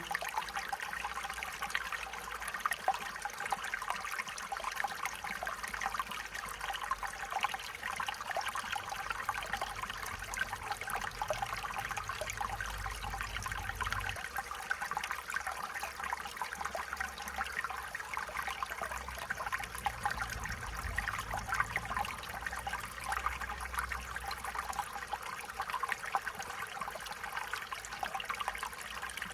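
A shallow stream running and trickling steadily over stones, a continuous babble of water.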